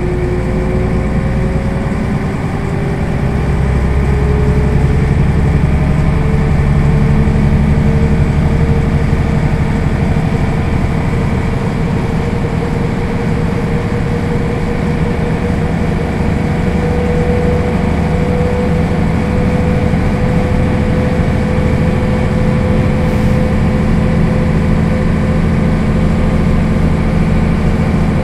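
1991 Mercedes-Benz O 405 city bus running under way: its diesel engine drones steadily while a whine climbs slowly in pitch over roughly the first half and then holds steady.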